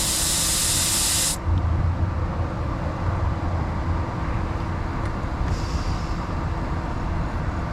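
Air hissing out of a truck tire as pressure is let out at the valve, cutting off sharply about a second and a half in; a second, shorter hiss follows about four seconds later. A steady low rumble runs underneath.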